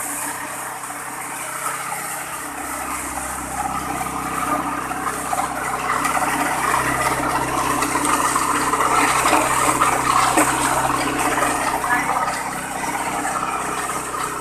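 Wet coffee pulper running: a steady motor hum under a dense rushing, water-like noise as the machine works, growing a little louder toward the middle.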